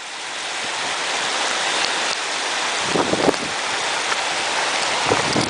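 Heavy rain pouring down in strong wind, a dense steady rush that swells over the first second and then holds.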